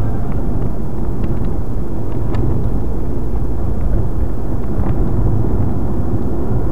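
Steady low rumble of a car driving, engine and tyre noise heard from inside the cabin through a dashcam microphone, with a couple of faint clicks.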